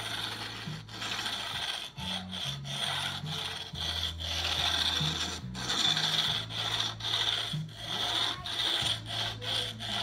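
Flat metal fret-leveling bar rubbed back and forth along the steel frets of a guitar neck, a scratchy filing sound at about two strokes a second. It is taking down frets that sit a little high.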